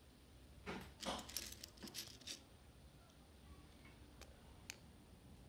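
Small plastic Lego pieces clicking and clattering: a cluster of sharp little knocks about a second in, then two faint clicks near the end.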